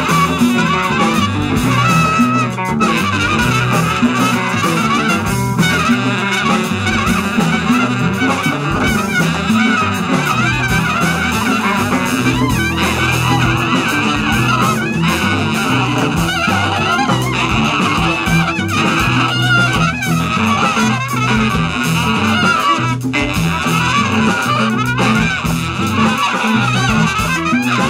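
Live jazz band playing: trumpet out front over drum kit, congas and cowbell.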